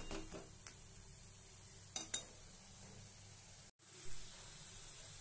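A metal spatula scraping and clinking against a kadai as a thick masala paste is stirred, over a faint frying sizzle. There are two sharp clinks about two seconds in.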